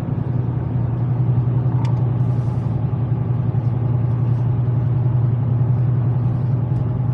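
Steady low drone of a car being driven, heard from inside the cabin: engine and road noise.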